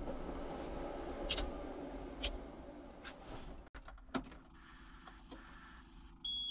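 John Deere 2038R compact tractor's diesel engine shut off after a cool-down idle, running down and fading away over the first few seconds, with a few sharp clicks. About six seconds in, a short high-pitched beep sounds from the dash as the warning lights come on with the engine stopped.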